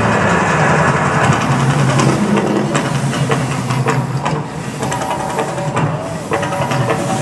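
Volcano show effects: a loud, steady low rumble with hiss and scattered crackles.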